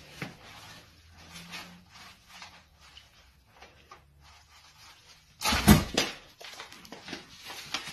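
A padded envelope rustles and scrapes as it is pushed through a door's metal letterbox. About five and a half seconds in there is a loud clatter and thud as the envelope drops to the floor and the letterbox flap snaps shut.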